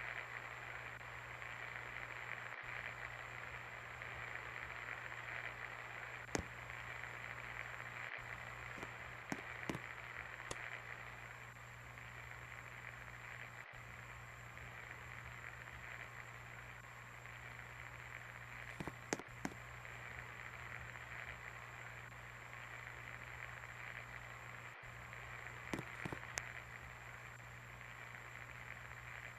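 52-inch Singer Classic Deluxe ceiling fan running steadily: an even rush of moving air over a low motor hum, with a few faint clicks here and there.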